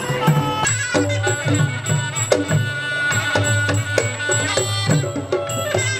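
Live band playing traditional Southern Thai dance music: drums and other percussion keep a steady beat under sustained melody notes.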